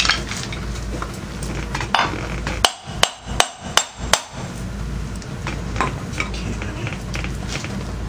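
Hammer blows on a wheel puller fitted to a Harley-Davidson clutch hub: five sharp metal strikes in quick succession about three seconds in, with lighter tool clicks around them. The blows are to shock the tight hub loose on its shaft.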